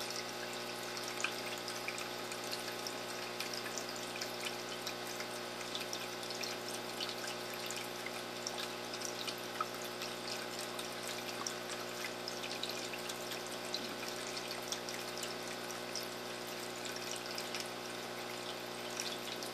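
Aquarium filter return water trickling and splashing steadily onto the tank's surface, with a constant hum from the filter's pump motor underneath.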